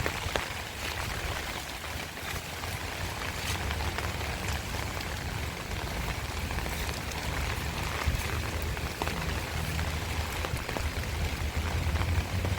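Heavy rain falling steadily, with scattered sharp drop hits over an even hiss and a low steady hum underneath.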